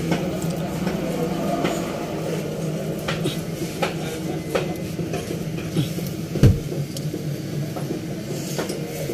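Scattered metallic clicks and knocks of hand tools at work on a carburetor, with one louder thump about six and a half seconds in, over a steady low mechanical hum.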